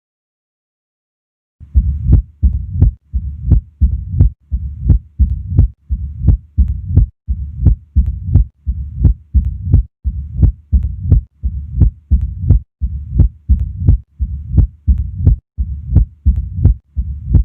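Heart auscultated at the apex in mitral stenosis, beginning about a second and a half in: sharp heart sounds repeat in a steady rhythm, with a low-pitched rumbling murmur filling the gaps between them.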